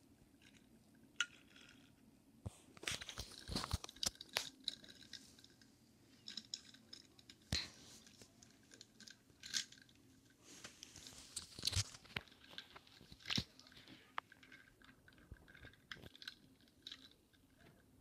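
Matchbox die-cast toy cars pushed by hand along a wooden ledge: the small wheels roll and scrape over the wood grain in irregular crunchy rasps and clicks, with louder bursts about three to four seconds in and again around twelve to thirteen seconds.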